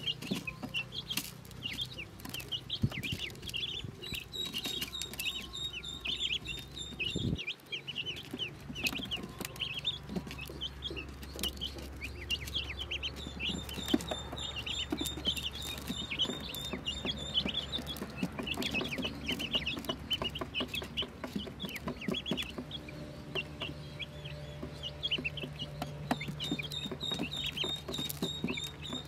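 A brood of newly hatched Pekin ducklings peeping constantly, many short, high calls overlapping several times a second, with a steady low hum underneath.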